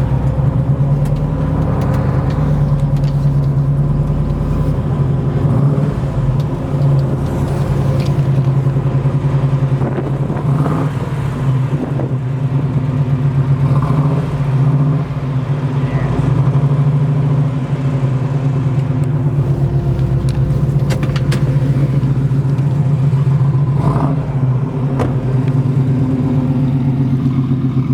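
1967 Chevrolet Chevelle's 396 big-block V8 running through headers and a Flowmaster dual exhaust, a loud, steady, deep exhaust note.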